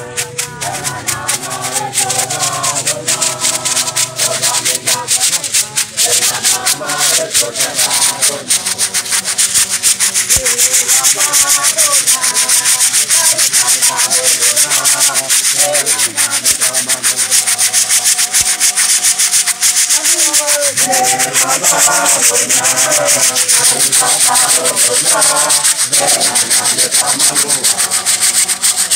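Beaded gourd shakers rattling fast and hard in a steady rhythm, loud over a choir singing in unison. The rattling builds up over the first several seconds and then stays dense.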